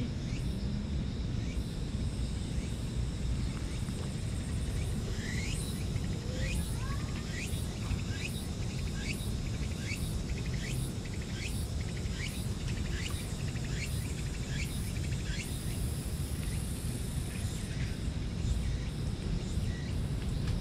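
Steady low outdoor rumble of wind or distant traffic. A run of short, falling chirps about twice a second from an animal calling starts about a quarter of the way in and stops just past the middle, followed by a brief high hiss.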